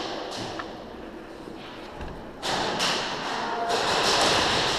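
Footsteps and gear rustling close to the microphone as a player moves, quieter at first and growing to a loud, steady rustle from about halfway in.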